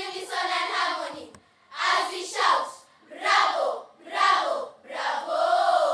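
A group of schoolchildren singing together in unison, in short phrases of about a second with brief pauses between them.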